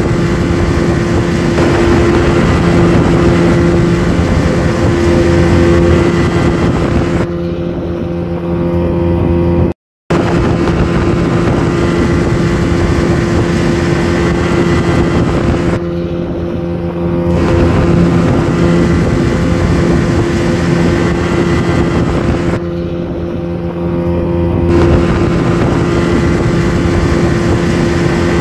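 Small battery-powered motor of a toy plastic speedboat running, a steady buzzing whir as it drives the boat's propeller. The sound cuts out for an instant about a third of the way in.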